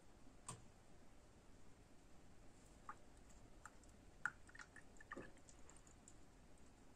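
Near silence with a few faint, short clicks and small wet dabs from a watercolour brush working in the pans of a paint set.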